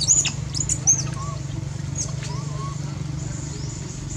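Several short, high-pitched animal chirps in the first second, then a few softer calls, over a steady low hum.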